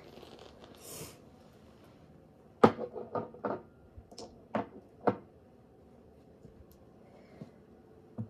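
Nail polish bottles being set down one after another, a quick run of light knocks and clicks from about two and a half to five seconds in, with a few fainter taps near the end.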